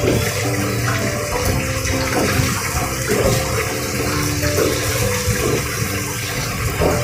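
Chicken deep-frying in a commercial fryer: the hot oil bubbles and sizzles steadily around the pieces in the wire basket.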